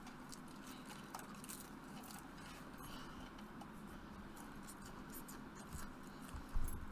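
Faint room tone with a low steady hum and scattered small clicks, and a short dull thump near the end.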